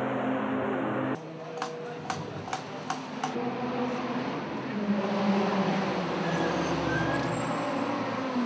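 Race car engines running at the circuit: a steady engine note, then after a cut about a second in, five sharp clicks about two a second and the sound of cars moving through the pit lane.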